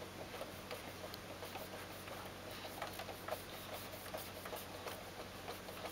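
Faint, irregular soft taps of a hand on the rubber pads of a video-game drum controller, over a faint steady hum.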